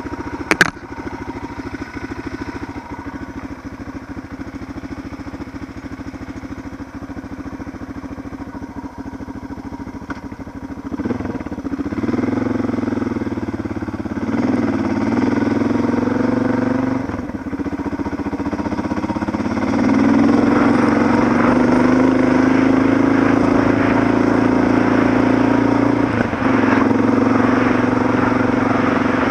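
Suzuki DR650's single-cylinder four-stroke engine idling with a sharp click just under a second in, then pulling away about eleven seconds in and running louder as the bike rides off on gravel, the engine note dipping twice at gear changes.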